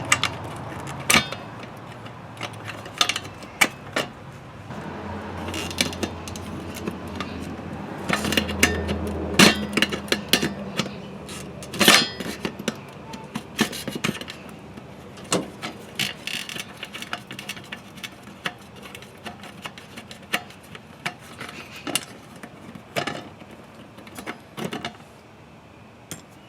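Scattered clicks and taps of a screwdriver and hands working on the metal of an air-conditioner disconnect box, loosening a terminal screw and pulling a wire out.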